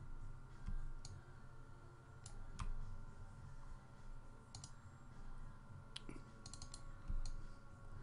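Computer mouse and keyboard clicks: scattered single clicks and short quick runs of two or three, over a faint steady background hum.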